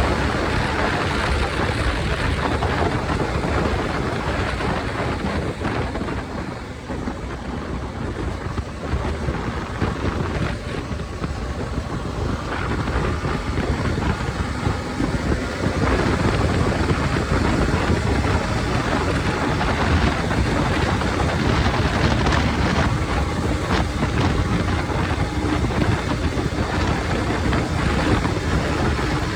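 Motorcycle engine and exhaust running, with wind buffeting the microphone. It dips briefly about six seconds in and then holds louder and steady.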